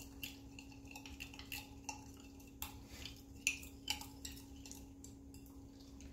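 Clear plastic spoon stirring dye powder and a little hot water in a small glass jar, giving irregular light clicks and scrapes against the glass as the powder is worked in to dissolve.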